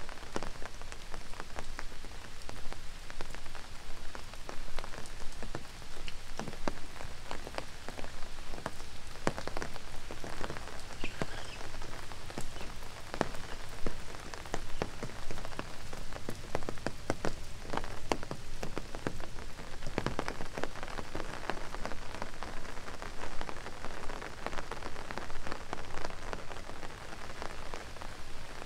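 Steady rain falling, with many close drops tapping sharply at irregular moments over the even hiss.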